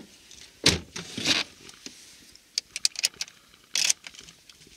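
Two dull thumps, then a scatter of light clicks and a brief rustle, heard inside a car's cabin.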